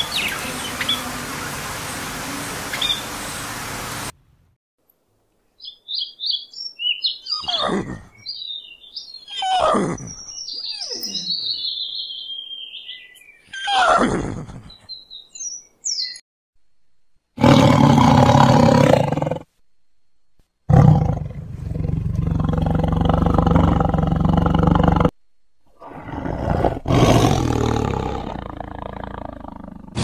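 Budgerigars chirping. After a cut comes a run of other animal calls, several falling cries mixed with high chirps, followed by a few loud, noisy animal calls with short silences between them.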